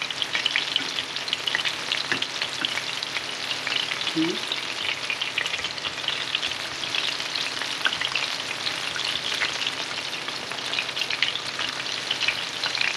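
Panko-breaded shrimp deep-frying in a pan of hot oil: a steady, dense crackling sizzle full of fine pops.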